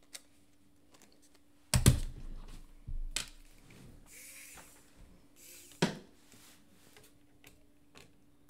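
Scattered clicks and knocks from handling small repair tools, a screwdriver bit case and an electric precision screwdriver. The loudest knock comes about two seconds in, with others near three and six seconds, over a faint steady hum.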